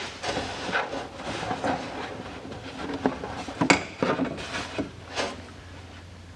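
Thin cardboard template being handled and trimmed: irregular rubbing and scraping with a few sharp taps, the loudest a little under four seconds in.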